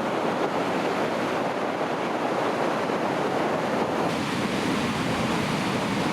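Ocean surf from a typhoon swell washing and breaking in a steady roar of noise, with onshore wind buffeting the microphone.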